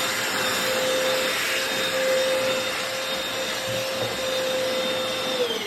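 Hoover FloorMate hard floor cleaner's vacuum motor running in vacuum mode: a steady whine over rushing air, its pitch dropping just at the end. The owner finds the motor doesn't sound good.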